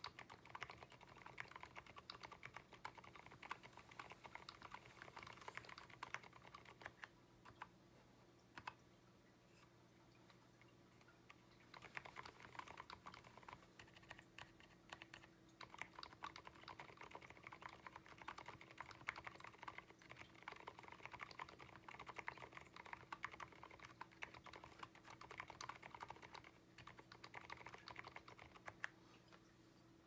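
Typing on an Abko AR87 mechanical keyboard fitted with fully lubricated Aliaz silent tactile switches: a quiet, fast run of soft keystrokes. The typing thins out for a few seconds around the middle, picks up again, and stops just before the end.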